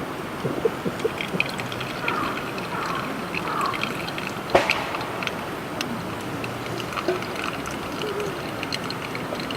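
Running water, a steady rush with small clicks scattered through it and one sharp knock about four and a half seconds in.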